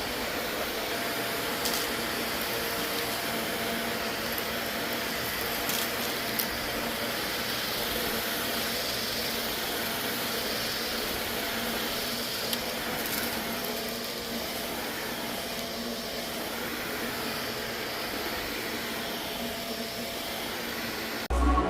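Vacuum cleaner running steadily, a constant rushing noise with a faint high whine and a few small clicks, slightly quieter from about two-thirds of the way in. Music cuts in at the very end.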